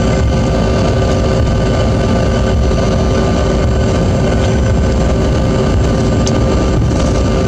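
Bombardier CRJ-200's rear-mounted turbofan engines running at ground idle, heard inside the cabin as a steady deep rumble with a few steady whining tones over it.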